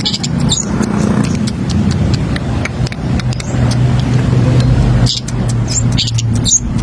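Long-tailed shrike giving sharp, high-pitched bursts of song briefly at the start and again from about five seconds in. In between, a vehicle engine hums steadily and is the loudest sound.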